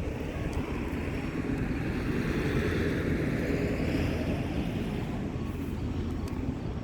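Steady low rumble of a freight train on the line, mixed with wind on the microphone; the noise swells a little in the middle and eases again.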